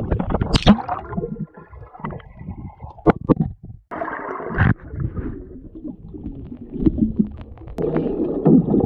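Muffled underwater gurgling and bubbling picked up by a camera submerged in a swimming pool, with a snorkeler's exhaled breath bubbling up in irregular bursts.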